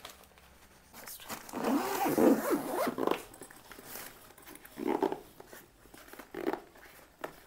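Zip of a packed hard-shell wheeled suitcase being pulled shut around the full case: one long pull, then two short tugs.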